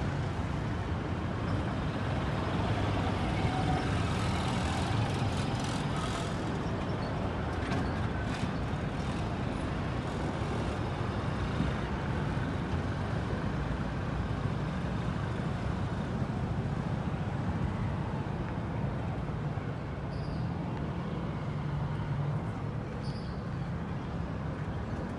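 Street traffic: small motor vehicles such as motorcycles and motorized tricycles running and passing, a steady low engine rumble with a few light clicks and rattles.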